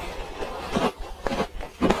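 Frozen orange ice being crunched and chewed close to the microphone, with three crunches about half a second apart.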